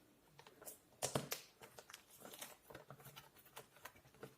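Faint rustling, crinkling and small clicks of packaging being handled and carefully opened, with the sharpest click about a second in.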